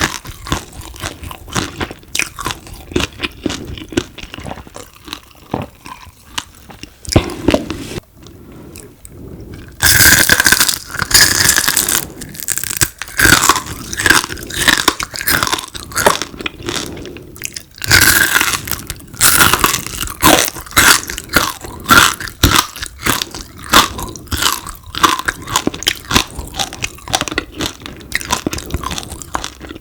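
Crispy deep-fried frog being bitten and chewed close to the microphone: dense, irregular crunching that eases for a couple of seconds about eight seconds in, then comes back louder.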